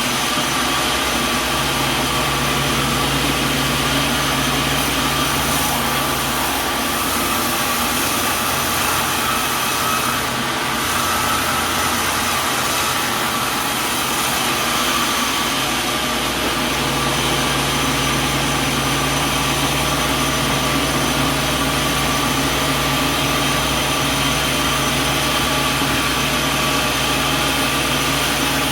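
Sawmill machinery running steadily: a continuous mechanical drone with a constant whine and a low hum that drops out for a while in the middle.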